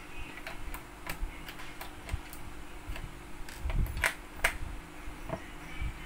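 Small screwdriver clicking and ticking against the screws and plastic bottom case of a laptop as the screws are undone, with two sharper clicks about four seconds in.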